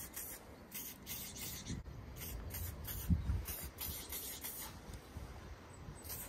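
Aerosol spray paint can spraying in a quick series of short hisses, about a dozen separate strokes, with a soft low bump about three seconds in.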